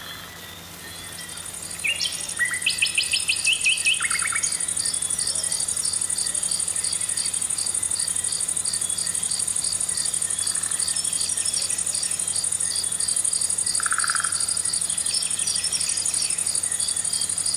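Outdoor nature ambience fading in: a steady high insect drone with rhythmic chirping, and a few fast bird trills about two to four seconds in, with another short trill near the end.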